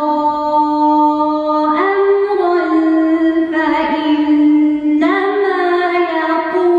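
A woman's solo Quran recitation in Arabic, chanted in long, drawn-out melodic notes with ornaments, a new phrase beginning every second and a half or so.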